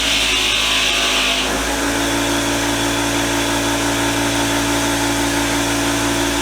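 Motor-driven wire wheel running steadily while wire-wheeling a metal vise part. A harsh high scratching from the wire on the metal drops away about a second and a half in, leaving the steady hum of the running wheel.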